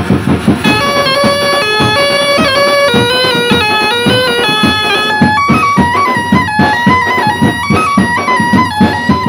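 Background music: a held, stepping melody line enters about a second in, over a steady drum beat.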